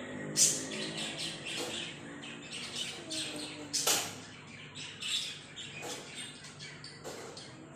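Lovebirds chattering: a run of quick, high-pitched chirps and squawks, with sharp loud calls about half a second in and about four seconds in.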